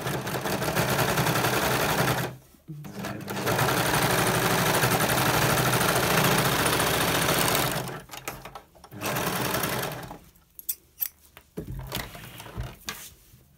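Overlocker stitching along a folded fabric edge in runs: it stops briefly about two seconds in, runs again for about five seconds, then gives one short burst near nine seconds. A few light clicks and rustles follow near the end.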